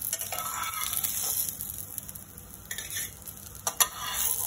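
Quinoa patties sizzling in shallow oil in a frying pan, while a metal spatula scrapes under them to lift them out. There is a sharp clack of the spatula on the pan near the end.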